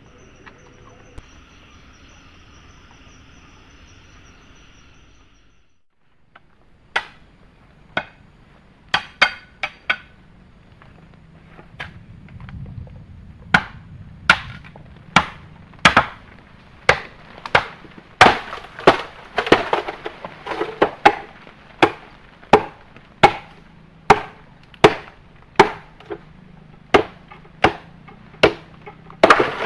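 Faint insects buzzing for the first few seconds, then a run of sharp chopping strikes on wood, scattered at first and then steady at about one stroke a second.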